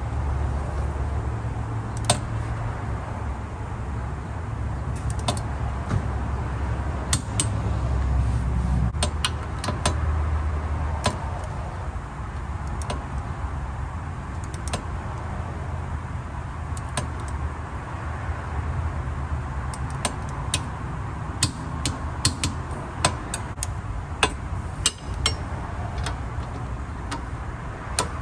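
Socket wrench clicking and clinking on a car's rear wheel-hub bolts as they are run down and tightened, with sharp single metallic clicks at uneven intervals, thickest in the second half, over a steady low hum.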